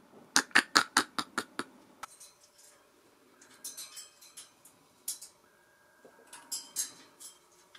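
African grey parrot's beak and claws on its metal wire cage as it grips and climbs the bars. It starts with a quick run of about seven sharp clicks, then gives sparser, fainter clicks and taps.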